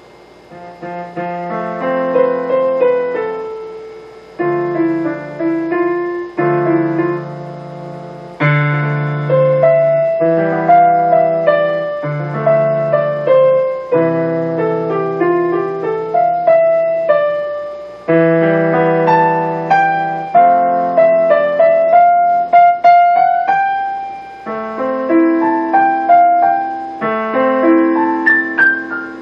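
Yamaha DGX-660 digital piano played on a piano voice: sustained bass chords in the left hand under a melody in the right, with a fresh chord struck every couple of seconds. The loudest notes come close to full scale and overload the camera's microphone, so the recording is harsher than the instrument itself.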